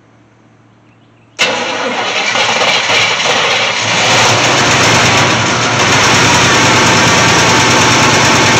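Carbureted Chevy truck engine catching suddenly about a second in and running, growing louder a few seconds later. It runs on fuel fed into the freshly fitted carburetor by hand, because no fuel line is hooked up yet.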